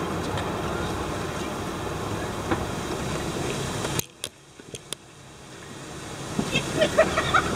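Steady motor-vehicle running and road noise that cuts off abruptly about four seconds in, then builds back up, with a few brief shouts near the end.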